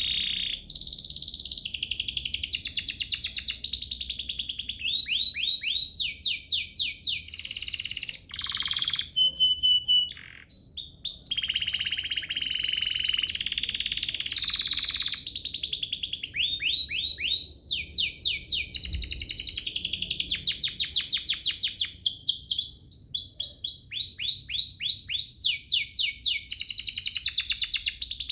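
Domestic canary singing a long, continuous song of fast trills and rolls: rapid runs of repeated rising notes, with a few held whistled notes about a third of the way in and brief pauses between phrases.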